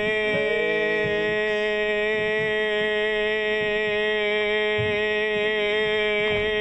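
A man's voice holding one long, flat, robot-like monotone note, drawn out mid-sentence with no change in pitch.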